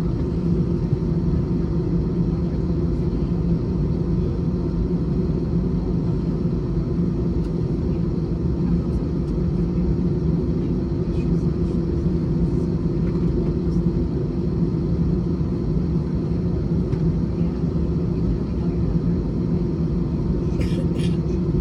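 Airbus A321 jet engines running at a steady setting, heard from inside the passenger cabin as a constant low drone with two held low tones.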